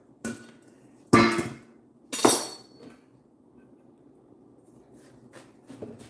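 Knife chopping through watermelon rind onto a cutting board: three sharp chops in the first two and a half seconds, then a few faint knocks near the end.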